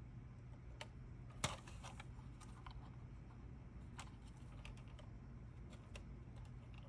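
Light plastic clicks and taps from a plastic scale model tank hull and its tracks being handled and pressed by hand, with one sharper click about a second and a half in, over a faint low hum.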